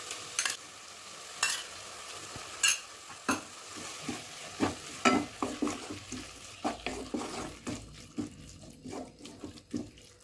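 Onions, tomatoes and cashews sizzling in a non-stick pan as spoonfuls of curd go in and a wooden spatula stirs and scrapes the mix, with repeated knocks of utensils against the pan. The sizzle dies down near the end as the curd cools the pan.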